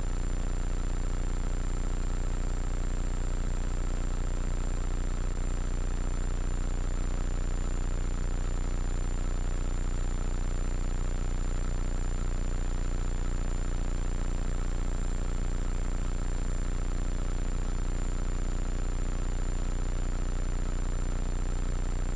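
Hummingbird helicopter in level cruise flight: a steady drone of engine and rotors with a thin high whine above it.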